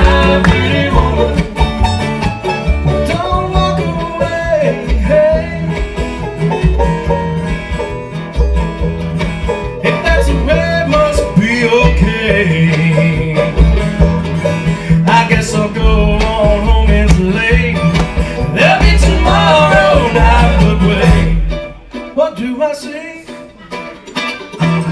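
Live bluegrass band playing: mandolin, banjo, acoustic guitar and upright bass, the bass holding a steady low line under the picking. About 21 seconds in, the bass and most of the band drop out and the music falls to a much quieter passage.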